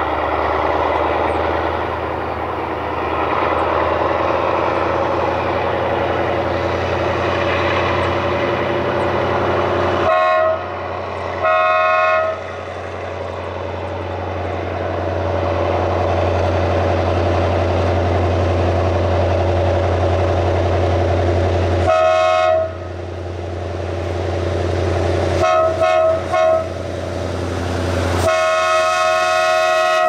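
TCDD DE24000-class diesel-electric locomotive's engine running with a steady heavy drone, while its multi-tone air horn sounds several times. There are two short blasts about ten seconds in, a single blast near the middle, a quick run of short toots, and then a long blast near the end.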